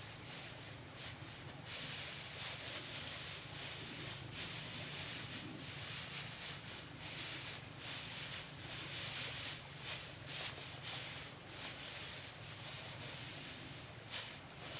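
Dry straw rustling as handfuls are pulled apart and spread by hand: a continuous run of quick, scratchy rustles.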